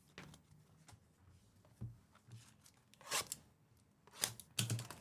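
Handling of trading cards and their packaging: faint scattered taps and clicks, with brief louder rasps about three seconds in and again near the end.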